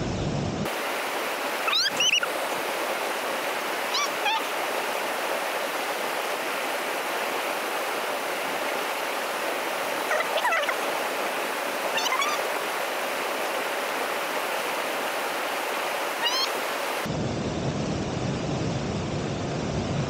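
Mountain stream rushing over rocks and small falls, a steady hiss of water, with a handful of short rising chirps over it.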